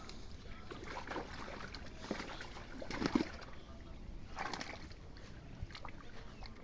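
Pond water sloshing and splashing as a fishing net is worked, with scattered small knocks and one louder splash about three seconds in.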